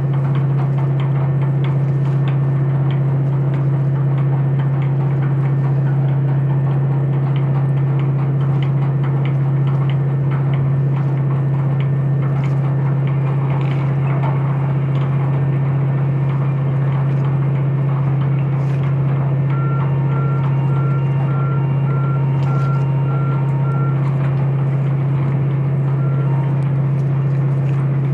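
Steady low drone of large diesel machinery. About twenty seconds in, a warning beeper sounds a run of short, evenly spaced beeps, about two a second, for several seconds.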